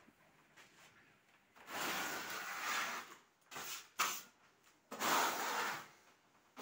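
Hand-held metal scraper dragged across a painted plaster wall in about four rasping strokes, the longest over a second. The wall's blistered paint and plaster is being worked off.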